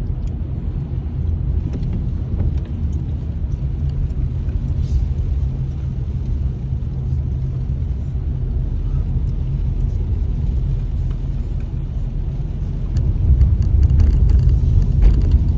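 Steady low rumble of a car driving, heard from inside the cabin, growing a little louder near the end.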